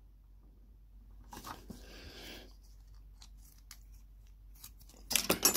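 Small handling noises from a plastic super glue tube and the plastic dashboard compartment: a faint rustle, scattered light clicks, then a busier run of clicks and rustling near the end.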